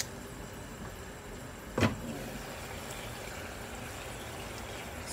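A glass pot lid knocks against the rim of a non-stick pot once, sharply and with a short ring, as it is lifted about two seconds in. A steady low hiss from the cooking pot runs underneath.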